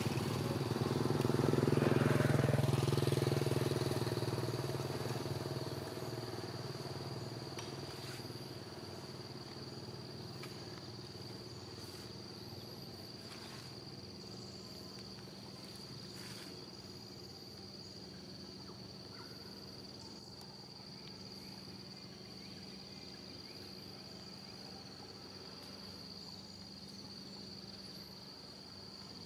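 A passing motor vehicle's engine swells to a peak about two seconds in, then fades away over the next few seconds. Throughout, insects keep up a steady high-pitched drone.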